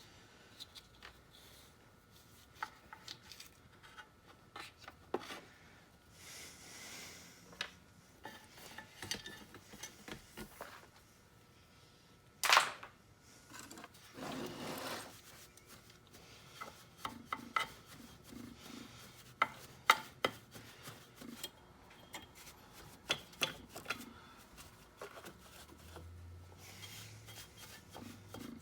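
Workshop handling noises as parts and tools are worked on a key machine: scattered clicks, taps and rubbing, with one sharp click about twelve seconds in. A faint low hum comes in near the end.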